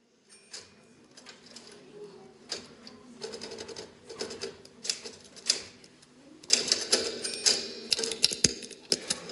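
Irregular mechanical clicking and clacking over a faint low steady hum. The clicks are sparse at first and become much denser and louder about six and a half seconds in.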